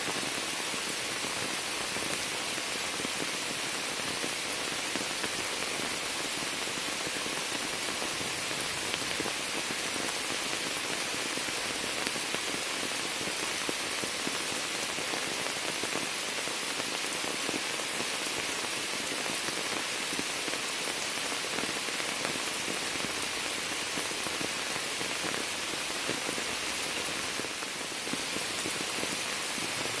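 Steady rain falling onto standing floodwater and shrub leaves, an even hiss made of countless small splashes.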